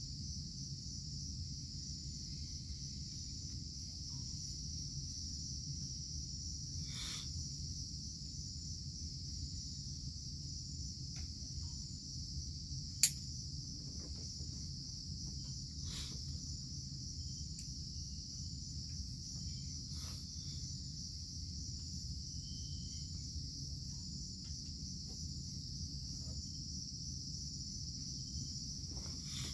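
Steady high-pitched chorus of insects, over a low steady rumble. A few faint clicks, and one sharp click about thirteen seconds in.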